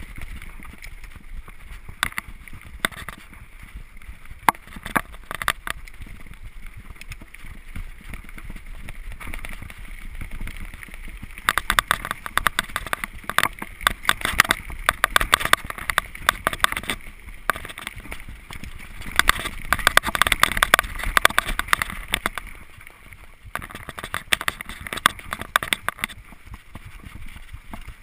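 2009 Gary Fisher HiFi Pro Carbon mountain bike rolling fast down a rough dirt singletrack, its tyres running over the ground while the bike rattles and clatters with constant knocks over bumps. Two rougher stretches in the middle bring louder, denser clatter.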